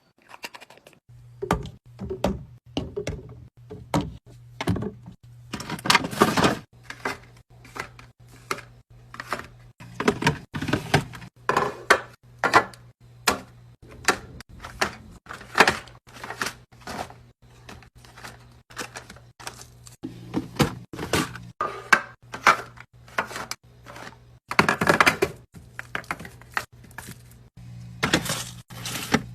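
Many quick clicks and knocks of packaging and containers being handled and set down, with several short bursts of rustling, over a steady low hum.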